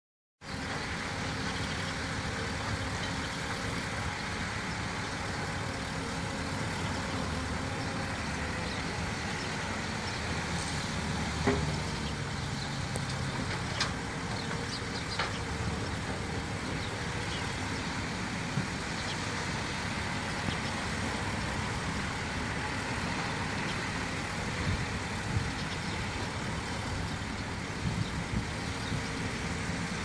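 Caterpillar hydraulic excavator's diesel engine running steadily as it demolishes mudbrick buildings, with a few sharp knocks scattered through.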